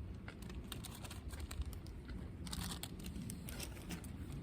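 Person biting into and chewing a Japanese green onion (negi), crisp crunching right at the microphone, with a denser run of crunches about two and a half seconds in.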